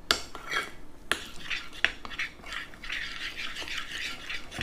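A spoon stirring thickening homemade slime in a pot: a few sharp knocks of the spoon against the pot, then a denser stretch of scraping and clicking.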